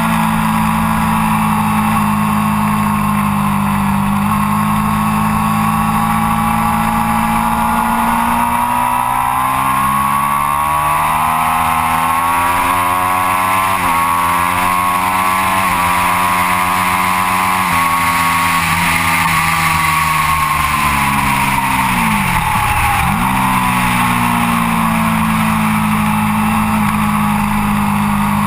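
Triumph Daytona 675 inline-three with an Arrow exhaust, heard onboard at speed: the engine holds steady through a corner, then revs climb in steps as it upshifts along the straight. After that the revs fall away under braking, with a brief sharp dip, and hold steady again into the next corner, all over constant wind rush.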